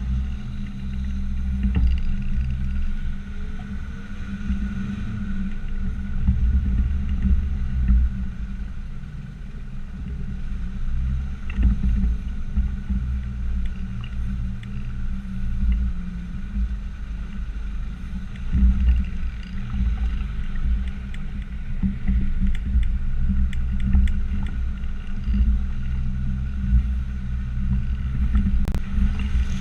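Land Rover Discovery Td5's five-cylinder turbodiesel engine running under load as it drives a muddy off-road track, its low drone rising and easing with the throttle, with a few faint knocks from the vehicle over the rough ground.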